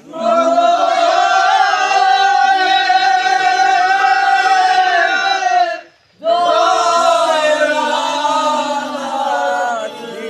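Group of men singing a chant together in unison on long held notes, breaking off for breath about six seconds in, then starting again.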